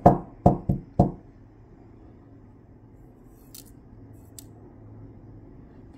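Four quick sharp taps or clicks within the first second, then quiet steady room tone with two faint ticks in the middle.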